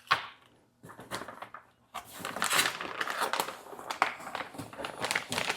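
Packaging being handled: a single sharp rustle at the start, then, about two seconds in, continuous crinkling and crackling of plastic and paper wrapping from the battery kit.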